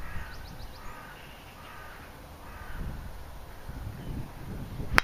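Repeated bird calls through the first three seconds, then, near the end, one sharp crack as a driver strikes a golf ball off the tee.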